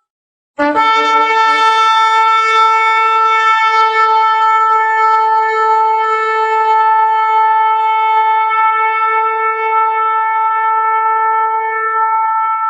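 A shofar (ram's horn) sounded in one long blast. It starts abruptly about half a second in, wavers briefly at the attack, then settles into a steady, bright, buzzy note held without a break for over ten seconds.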